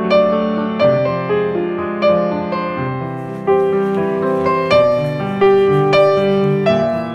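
Background piano music: a gentle, even run of single struck notes, a new one about every two-thirds of a second, each fading away.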